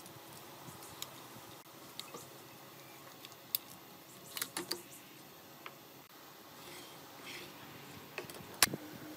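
Scattered light clicks and taps of hand tools on a wooden board as a tape measure, pencil and square are handled while marking out a cut, with a small cluster of taps about midway and one sharper knock near the end.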